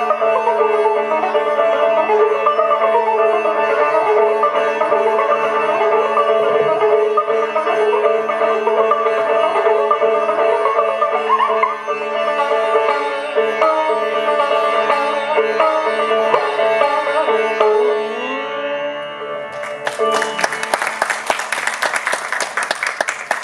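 Sitar playing raag Shree in slow, sliding phrases over a steady drone, ending on a final upward slide about nineteen seconds in. Audience applause breaks out about a second later and continues.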